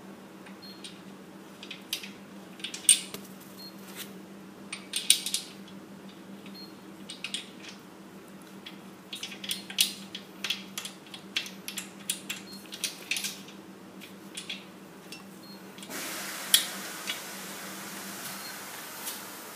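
Irregular clicks and rattles of small hardware as a rubber foot is bolted by hand to the underside of a small air compressor tank, over a steady low hum. A steady hiss comes in near the end.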